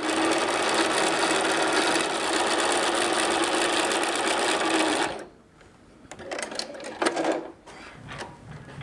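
Bernina sewing machine stitching a straight seam at a steady fast speed, stopping suddenly about five seconds in. A few light clicks and rustles follow as the sewn fabric is handled.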